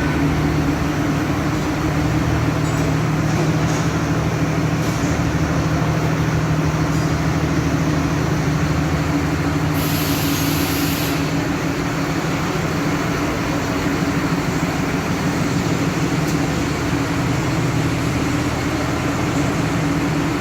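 Vishal 495 combine harvester running steadily at a constant engine speed, with a brief hiss lasting about a second roughly halfway through.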